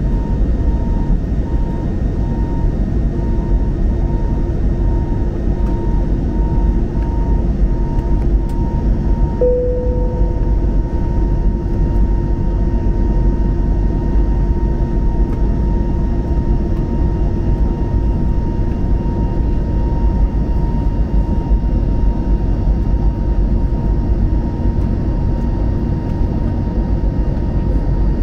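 Steady roar of an Airbus A321neo's Pratt & Whitney geared turbofan engines and rushing air, heard from inside the cabin during the climb. A faint high tone hums under it, and a short tone sounds about nine and a half seconds in.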